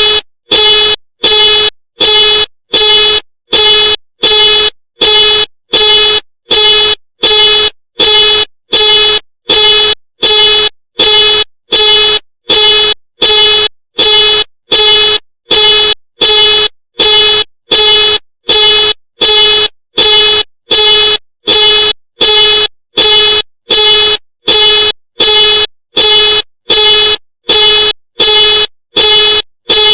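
Ford car alarm sounding the car's horn in loud, evenly spaced honks, about one and a half a second, each a steady single-pitched blare with short gaps between.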